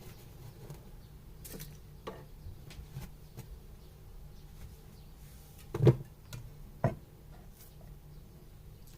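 Scattered light clicks and taps from kitchen utensils and dishes being handled, with two louder knocks about six and seven seconds in, over a low steady hum.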